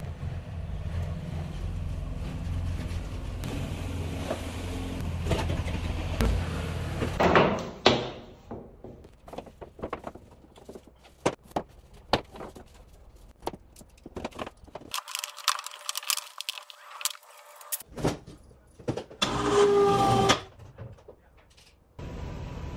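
Electric cable hoist motor running with a steady low hum, then scattered clicks and knocks of the lift being handled, a short pitched motor whine about two-thirds of the way through, and a steady low hum again near the end.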